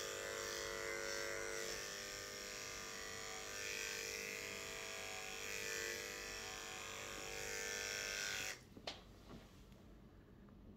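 Electric grooming clippers running with a steady hum as they shave a Maine Coon cat's long coat. They are switched off abruptly about eight and a half seconds in, followed by a couple of faint clicks.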